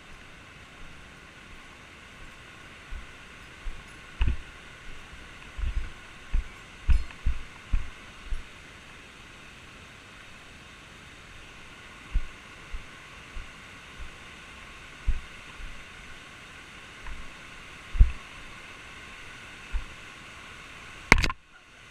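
Irregular low thuds of footfalls and handling on a camera carried along a trail, over a steady background hiss. One sharp click comes near the end.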